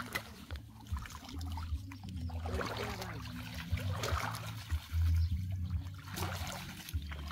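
Shallow water splashing and trickling as hands work through a submerged mesh fish-trap net, with intermittent low rumbling that is loudest about five seconds in.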